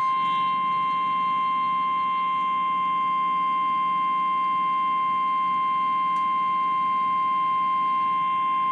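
NOAA Weather Radio 1050 Hz warning alarm tone: one loud, steady, unbroken pitch. It signals that a warning-level message is about to be read, here a tornado warning.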